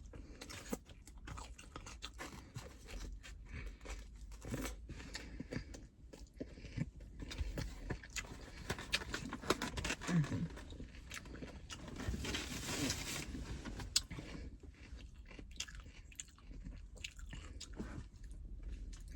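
A person chewing and crunching food, with many irregular small clicks and mouth sounds.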